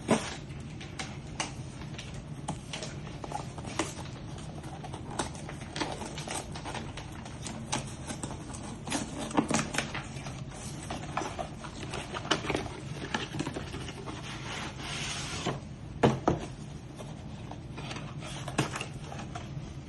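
Hands opening a box and handling its packaging: scattered clicks, taps and rustles throughout, a longer stretch of crinkling about fifteen seconds in, and a couple of louder knocks near the end.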